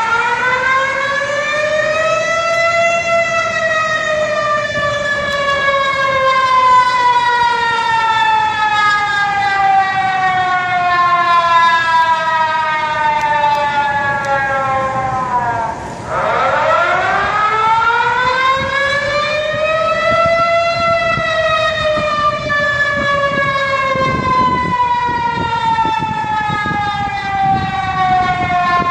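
Civil defence warning siren sounding a tsunami alert in long wails. Its pitch climbs over a few seconds, then sinks slowly for more than ten. The second rise begins just past halfway and is falling again at the end.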